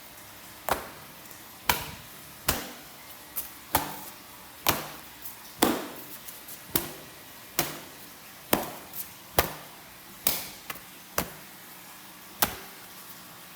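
A series of sharp knocks, about sixteen at uneven intervals of roughly one a second, each ringing out briefly.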